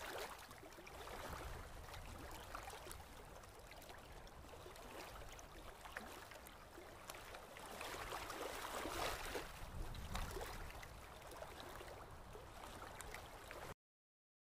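Small ocean waves washing onto a sandy beach: a soft, steady surf wash that swells a little for a couple of seconds past the middle, then cuts off abruptly near the end.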